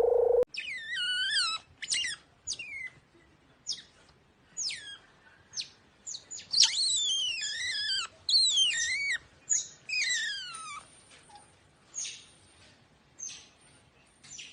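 High-pitched squeaky chirping calls from a small animal: a quick series of short calls that dip and rise in pitch, coming thick and fast in the middle, then thinning out into fainter, scattered chirps.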